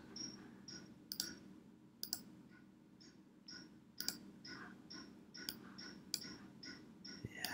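Faint computer mouse clicks, a dozen or so short sharp clicks at irregular spacing, about two a second, as the map is zoomed out.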